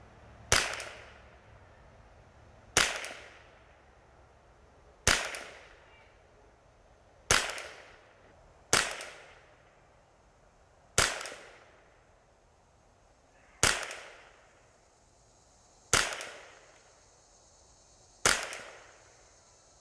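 Nine single .22 LR rifle shots, fired at a slow, even pace about two seconds apart, each a sharp crack with a short fading echo, shooting a group on paper at 50 yards.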